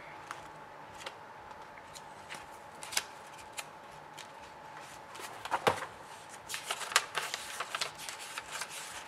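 Pages of a thick paperback transistor data book being handled and flipped: scattered paper flicks and rustles, getting busier with rapid page riffling in the second half.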